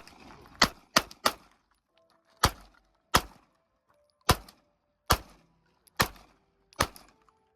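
Handgun fired in a string of about ten single shots at an uneven pace, each a sharp crack with a short echo, during desert target practice.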